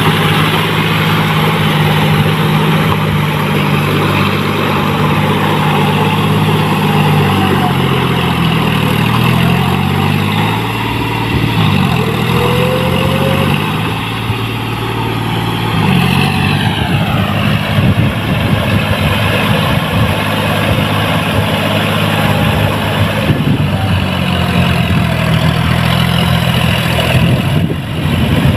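John Deere 5045D tractor's three-cylinder diesel engine running under load as the cage-wheeled tractor churns through paddy-field mud. The engine speed rises and falls several times around the middle, and the sound dips slightly as the tractor moves farther off.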